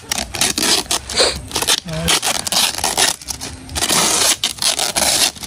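Plastic wrapping and packing tape crinkling and ripping as a heavily wrapped package is pulled open by hand, in quick irregular rips and rustles.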